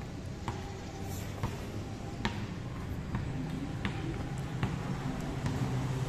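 Sneakers striking a concrete floor during repeated jump squats: a short sharp tap about once a second, over a steady low background rumble.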